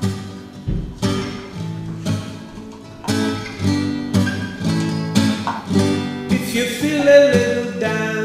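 Background music: a strummed acoustic guitar playing chords in a steady rhythm, with a singing voice coming in near the end.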